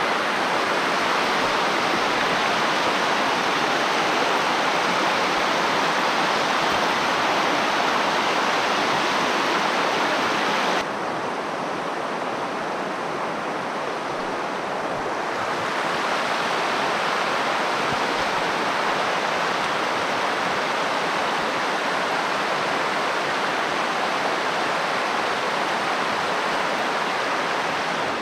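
Steady rush of river water running over shoreline stones. About eleven seconds in it turns duller and slightly quieter for a few seconds, then comes back as before.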